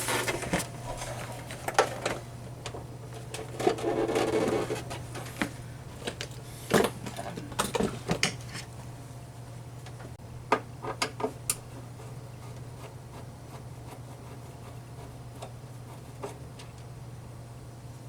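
Light knocks, clicks and a short scraping rub of a plastic turntable being handled, over a steady low hum. The knocks cluster in the first dozen seconds, and it is quieter with only the hum near the end.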